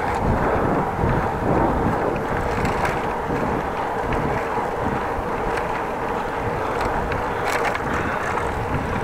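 Wind buffeting the microphone of a camera on a moving bicycle, over the steady rolling noise of the bike on the path, with a few light ticks near the end.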